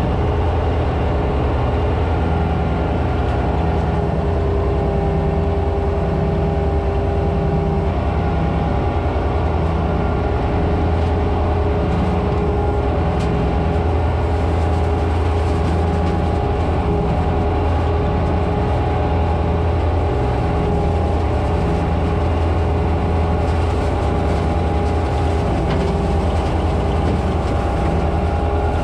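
Tractor diesel engine running steadily under load, driving a tractor-mounted flail hedge trimmer as it cuts, heard from inside the cab. There is a steady whine over the engine note and a few light clicks.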